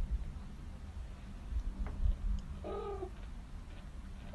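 A domestic cat meows once, short and fairly faint, about two and a half seconds in, over a low background hum.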